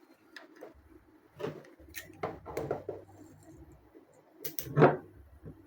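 Scattered light clicks and taps of handling noise as battery cells and wires are moved about on a workbench, with a louder knock near the end.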